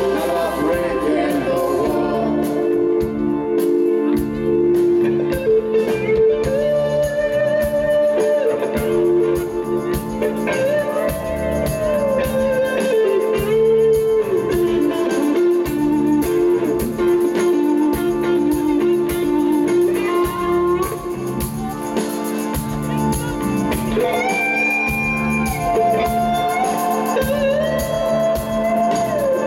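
Live rock band playing a slow piece on electric guitar, bass and drums, with a lead line of long held notes that bend up and down.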